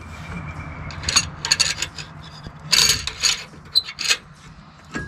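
Bursts of metallic clicking and rattling as shock-mounting hardware and hand tools are handled, in three clusters, over a steady low hum.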